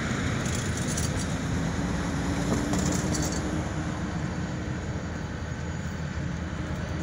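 Freight train with diesel locomotives rumbling steadily, slowly fading, with a steady low hum under the noise.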